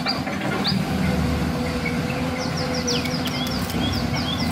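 Small birds chirping in quick runs of short falling notes, thicker from about halfway in, over a steady low hum.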